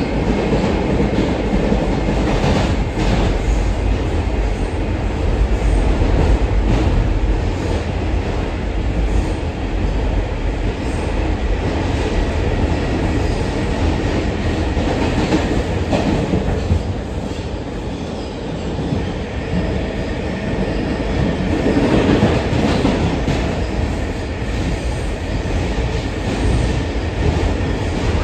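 R142 subway car running at speed, heard from inside the car: a steady rumble with wheels clacking over rail joints.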